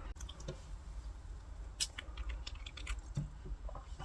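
Scattered light clicks and taps from handling small objects on a work surface, with one sharper click a little under two seconds in and a quick run of small ticks after it.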